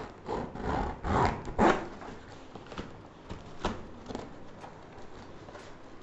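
Packing tape being ripped off a cardboard shipping box in four quick pulls within the first two seconds, followed by a few lighter clicks and rustles of the cardboard flaps being handled.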